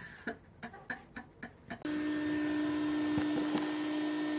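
A few faint taps, then, about two seconds in, a small motor starts abruptly and runs on as a steady hum with one fixed tone.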